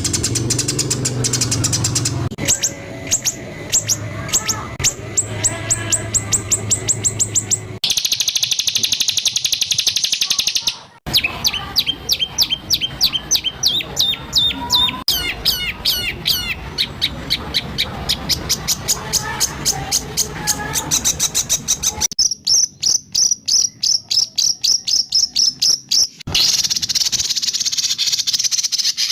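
Songbird song of the kind used to train white-rumped shamas: rapid-fire 'tembakan' series of sharp notes repeated several times a second. The phrase type changes every few seconds, with buzzy harsh rattles a third of the way in and again near the end.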